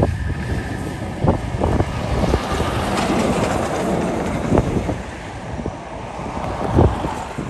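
TasRail hi-rail truck passing, a broad vehicle noise that builds to a peak about three seconds in and then eases. Wind buffets the microphone throughout.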